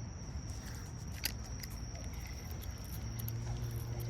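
Insects trilling in one steady high note over a low outdoor rumble, with a single sharp click about a second in.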